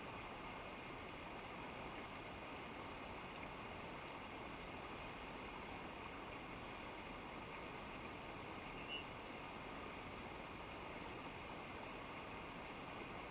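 Steady, even rush of a mountain stream, with one brief high-pitched chirp about nine seconds in.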